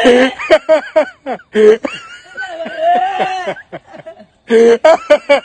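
Women laughing hard in rapid, high-pitched bursts of laughter with squeals. The laughter dies down briefly a little past the middle and breaks out again near the end.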